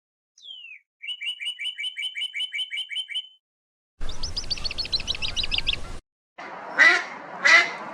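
A short falling whistle, then a quick run of about a dozen bird chirps, then a brief fast trill with a hiss behind it. Near the end a mallard starts quacking: two loud quacks about two-thirds of a second apart.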